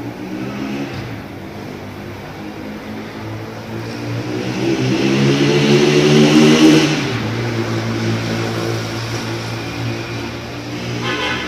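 A motor vehicle passing on the street: its engine noise grows louder, peaks about two-thirds of the way through, then drops off sharply, leaving a steady low engine hum.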